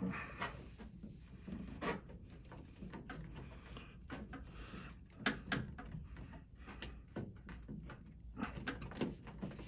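Rubber corner seal being pressed and slid onto the steel edge of a Ford Bronco tailgate by hand: irregular faint rubbing, clicks and knocks of rubber and plastic against the metal.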